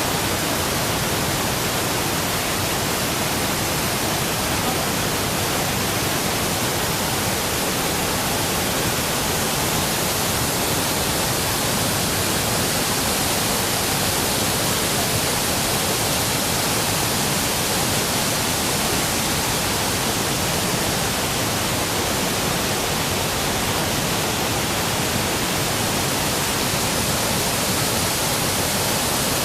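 Waterfall running in high flow, swollen by recent heavy rain: a steady, unbroken rush of falling water.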